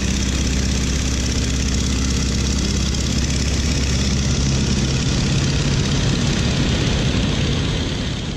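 Radial engine of an open-cockpit biplane running steadily in flight, with loud wind rush over the cockpit.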